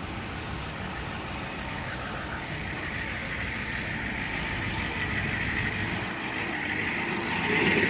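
Road traffic: a passing vehicle's engine and tyre noise that grows steadily louder.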